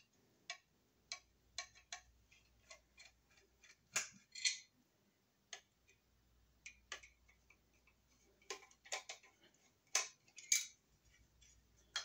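Screwdriver working on a small metal wire mold box: a scatter of light clicks, ticks and scrapes, with sharper clinks about four seconds in and again a couple of seconds before the end.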